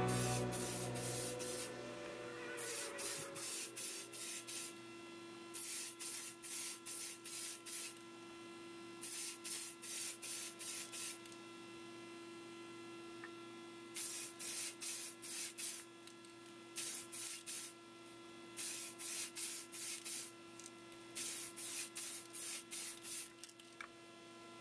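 Spray paint hissing in short, quick bursts, in runs of about four to seven with brief pauses between, over the steady hum of a spray booth's exhaust fan.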